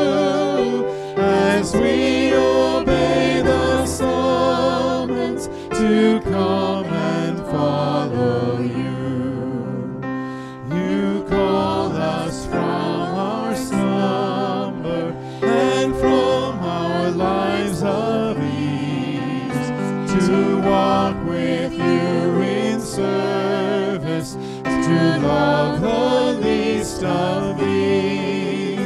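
A hymn sung by a small group of voices, accompanied by flute and electric keyboard.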